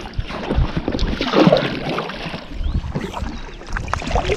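Paddle strokes splashing in river water beside an inflatable kayak, with a louder splash about a second and a half in and wind rumbling on the microphone.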